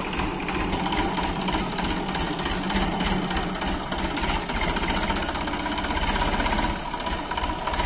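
Massey Ferguson 9000 50 hp diesel tractor engine running, towing a spring-tine cultivator; a steady, rapid low beat, briefly dipping about seven seconds in.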